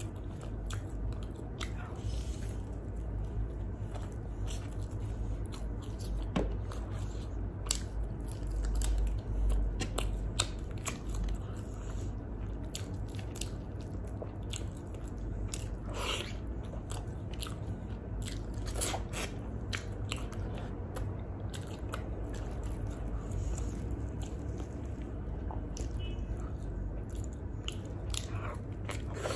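Close-miked eating sounds of a person biting and chewing grilled chicken and flatbread: many short wet mouth clicks and a few crunches, over a low steady hum.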